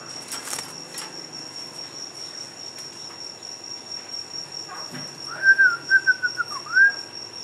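A clear whistle lasting about a second and a half, starting about five seconds in, warbling on one note and ending with a short rising note. A steady high-pitched whine sits underneath, with a few faint clicks near the start.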